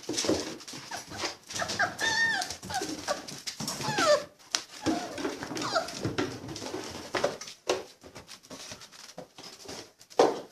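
Five-and-a-half-week-old Labrador puppies whimpering and yipping in many short, bending whines, with short clicks and scuffs between them.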